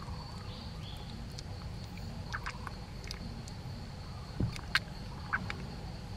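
Baby yellow-cheeked gibbon sucking and mouthing at a finger: a few soft mouth clicks and short squeaks, the sharpest about three-quarters of the way through, over a steady low hum.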